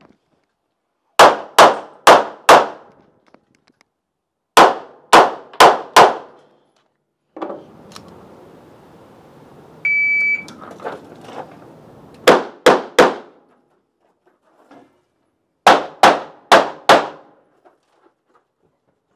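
Handgun fired in quick strings during a practical-shooting course of fire: four shots about a second in, four more a few seconds later, a further run of shots after a pause, and a last string of four near the end, each shot ringing off briefly.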